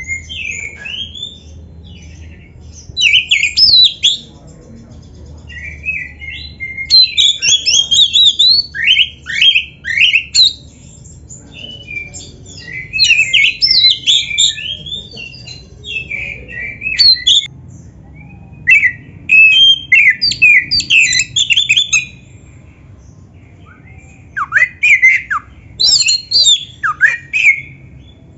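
Oriental magpie-robin singing: loud runs of quick, varied whistles and chattering notes, broken by short pauses.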